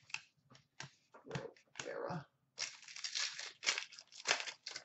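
Trading cards flicked and shuffled in the hands with short rustles and clicks. Then, from about halfway, a plastic card-pack wrapper crinkles and tears as a pack is opened.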